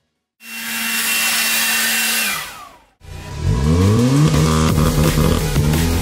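Edited end-screen soundtrack: after a moment of silence, a loud hissing whoosh with a steady hum lasts about two and a half seconds and winds down with a falling pitch. About three seconds in, loud deep sound with repeated rising and falling pitch sweeps starts.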